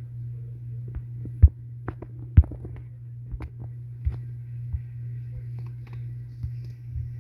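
A steady low hum with irregular clicks and knocks over it, the two loudest knocks about a second and a half and two and a half seconds in.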